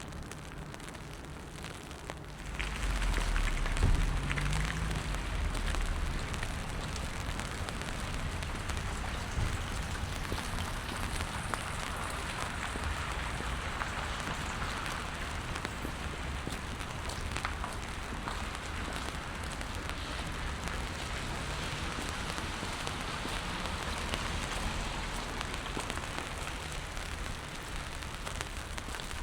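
Steady rain falling on wet pavement, a dense hiss of drops that grows louder about two and a half seconds in. A brief low rumble comes a few seconds in.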